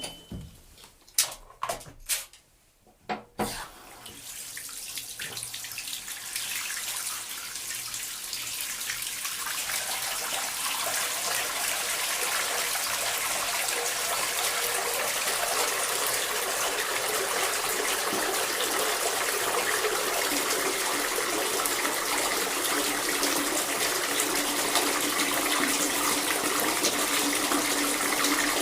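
A few sharp knocks, then a bath tap running into the tub. The water noise builds over several seconds to a full, steady gush.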